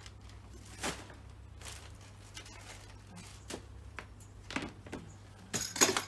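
Plastic packets of bird seed rustling and knocking about in a plastic storage box as they are handled, in scattered short clicks, with a louder clatter of plastic near the end.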